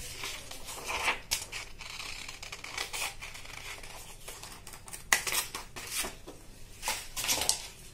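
Scissors cutting along a curved line through a folded sheet of paper: a run of short snips and paper crackles.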